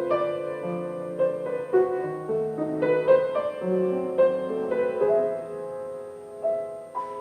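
Piano playing an unhurried passage of ringing chords and single melody notes, each struck about twice a second.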